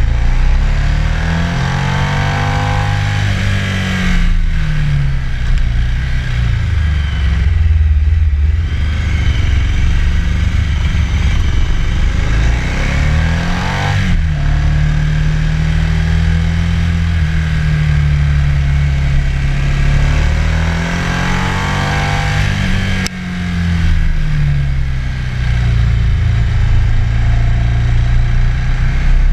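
Ducati motorcycle's twin-cylinder engine running under way, its pitch rising and falling a few times with the throttle and gear changes, over a steady rush of wind and road noise. The sound jumps abruptly in level a little over three-quarters of the way through.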